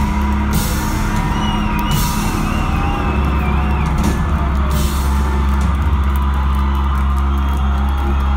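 Live rock band playing loud, with electric guitars over a heavy low end and drums with repeated cymbal crashes. A high wavering note sounds through the first half, and the drumming gets busier with rapid hits in the second half.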